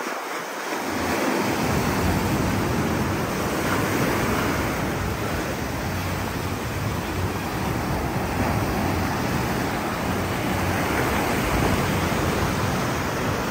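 Sea surf breaking and washing up the sand, with wind buffeting the microphone: a steady rushing noise.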